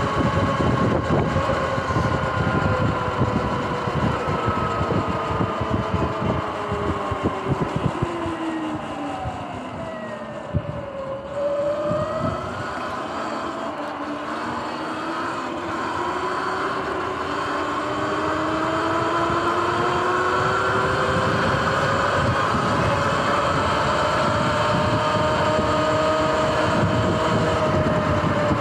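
Sur-Ron X electric dirt bike's motor whine, several tones together, falling in pitch as the bike slows about ten seconds in, then rising steadily as it speeds back up. Wind buffets the microphone underneath.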